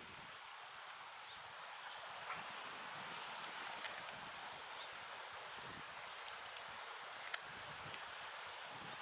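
Jungle insects calling: a steady high whine throughout, then from about three seconds in a rhythmic high chirping at about three pulses a second that slows and fades near the end. A short falling whistle comes just before the chirping starts.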